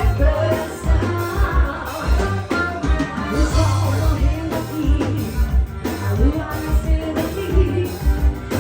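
Live forró band music with a singer's voice over a steady, heavy low drum beat.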